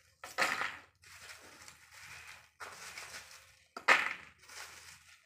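Lumps of charcoal being handled and dropped into a plastic plant pot, rustling and crunching, with two louder clatters about half a second and about four seconds in.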